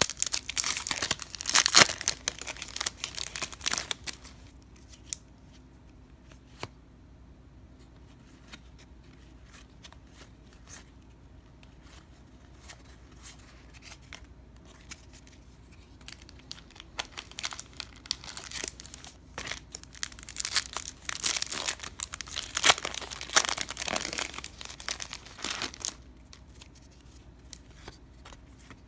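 Trading card pack wrappers being torn open and crinkled, in two bouts of loud rustling, one at the start and one from about two-thirds of the way in, with faint ticks of cards being handled between them.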